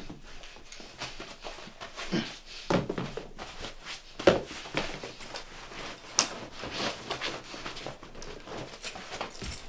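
Clothing rustling and shuffling with irregular small knocks as a man hurriedly pulls off his trousers, with his breathing mixed in; a few louder knocks stand out about three and four seconds in.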